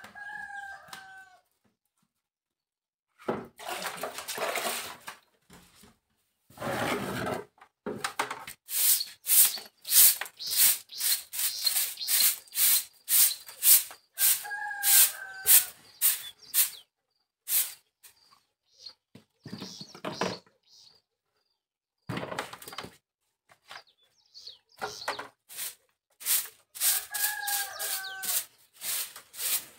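Short bundle broom sweeping over wet, muddy ground in quick scratchy strokes, about two to three a second. Two longer swishes come in the first seconds. A chicken gives a short falling call three times: near the start, about halfway and near the end.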